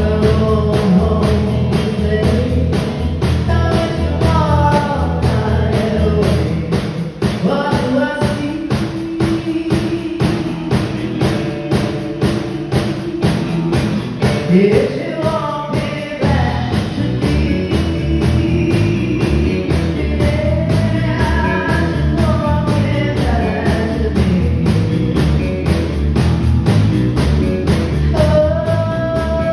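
A live rock-and-roll band plays, with a lead singer over drums and keyboards. Midway the beat thins out for several seconds while the singer holds one long note, then the full band comes back in.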